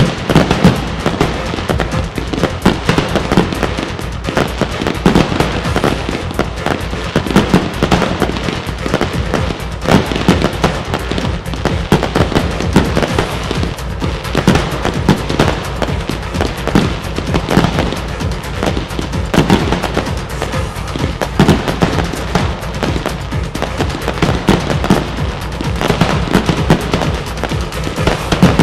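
Aerial fireworks display: shells launching and bursting in a rapid, continuous run of bangs, with music playing throughout.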